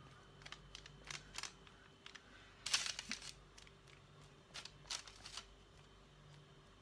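Faint scrapes, light clicks and rustles of a small knife and hands spreading butter over raw dough buns on a baking-paper-lined tray. The loudest scraping comes a little under three seconds in, with a few more around five seconds.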